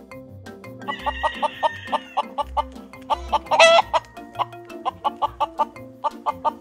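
Domestic chickens clucking in a quick run of short calls, with a drawn-out call about a second in and a loud squawk about three and a half seconds in, over background music.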